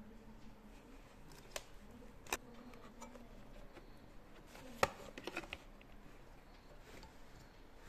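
Scattered light clicks and taps of tools and parts being handled during a refrigerator repair, the sharpest a single tap a little before the five-second mark followed by a quick run of smaller clicks, over a faint steady hum.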